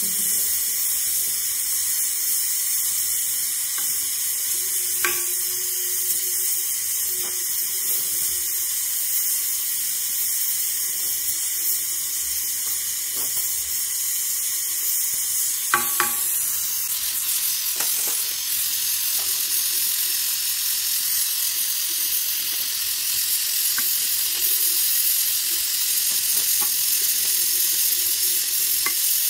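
Gas welding torch flame hissing steadily as filler rod is melted into a cast aluminium motorcycle engine case, with a few sharp pops: one about five seconds in and two close together a little past halfway.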